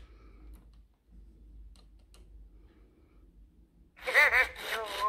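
A few faint clicks, then about four seconds in a 1998 Furby starts chattering in its high, warbling electronic voice, reacting to a hand held over its eyes.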